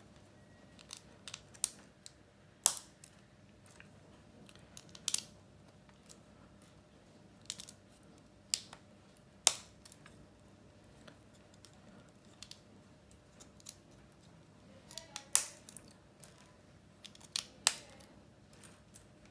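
Plastic LEGO bricks clicking and clacking as they are handled and snapped together: sharp single clicks at uneven intervals, with a few close together about fifteen seconds in.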